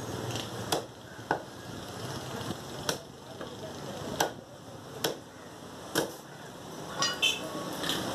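A butcher's cleaver chopping mutton on a wooden log block: about eight heavy, irregular chops, roughly one a second, with a short clatter of sharper knocks near the end.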